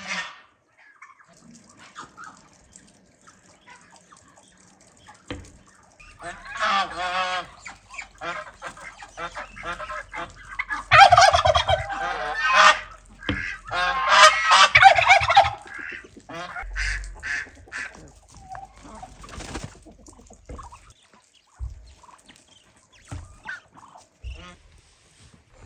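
Farmyard poultry calling loudly in several bouts through the middle, followed by shorter calls.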